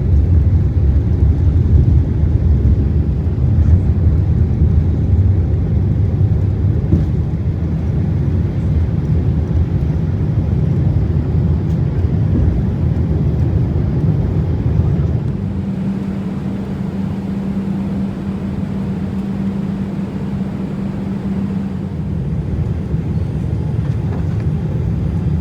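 Steady low vehicle rumble that eases about fifteen seconds in, with a steady hum held for several seconds after.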